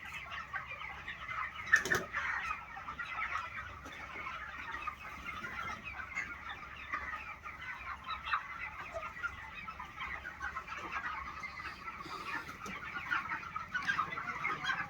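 A flock of broiler chickens clucking and cheeping together in a steady, dense chatter. There is a single sharp knock about two seconds in.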